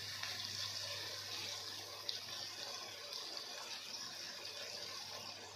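Chicken frying in oil with onions in an aluminium pot: a steady sizzle that slowly fades, over a low steady hum, with one small click about two seconds in.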